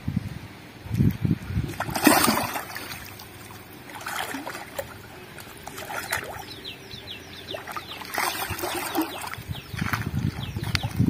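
A large hooked catla thrashing at the water's surface, with four or so splashes; the loudest comes about two seconds in.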